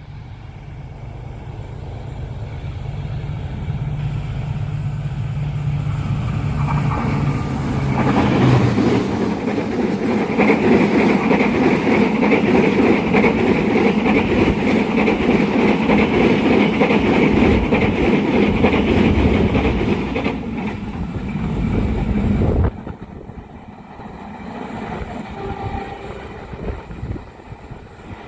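A diesel-hauled passenger train approaches, its locomotive drone building steadily. It then passes close by with loud rolling wheel and carriage noise for about fifteen seconds. The sound cuts off suddenly about three-quarters of the way through, leaving a much quieter train sound.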